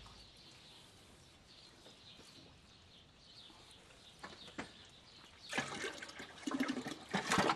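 Used engine oil trickling and dripping into a drain bucket during a tractor oil change. Faint at first, then a louder spell of splashing and clatter from about five and a half seconds in.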